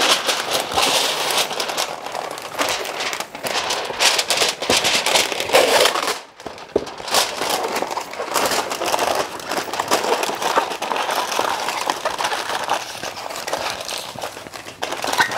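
Extra-wide aluminium foil crinkling and crumpling continuously as it is folded and pressed tightly around a smoked pork joint, with a short lull about six seconds in.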